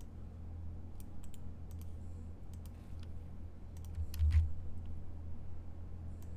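Scattered clicks of typing on a computer keyboard, with a dull thump about four seconds in, over a steady low hum.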